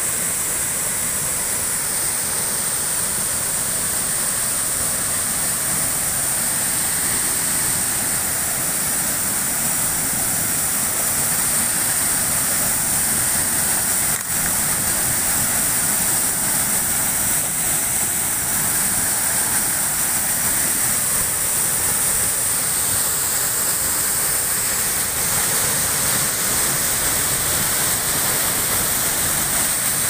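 Waterfall plunging over rock ledges into a muddy pool: a steady, hissing rush of falling water.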